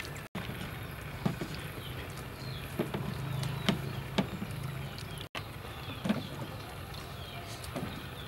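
Hands washing small fruits in a steel bowl of water: splashing and sloshing, with a few sharp taps as fruits are handled and dropped into a plastic basket. Birds chirp faintly in the background.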